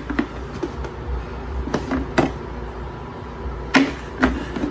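Clear hard-plastic pet water dispenser being handled, giving several sharp plastic knocks and clicks.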